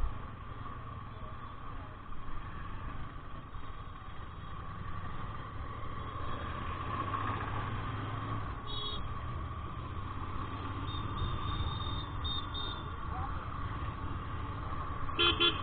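Vehicle engine running steadily, a low even rumble, with a few brief high beeps in the second half.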